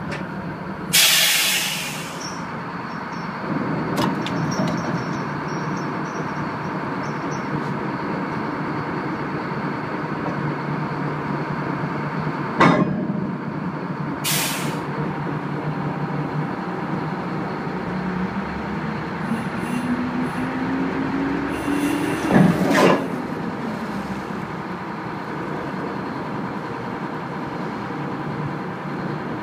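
Tugboat's diesel engines running steadily, heard from inside the wheelhouse, with two short hisses and a few sharp knocks. A little past halfway the engine note climbs in pitch over a few seconds, then settles.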